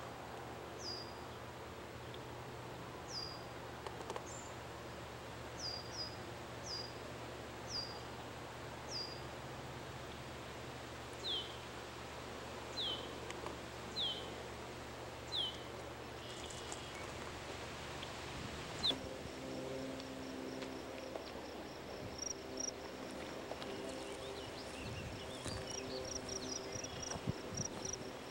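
Outdoor ambience: a bird gives short, sharp chirps that drop in pitch, one every second or two. From about two-thirds of the way in, a steady, rapidly pulsing high trill of insects or a bird carries on over a faint low hum.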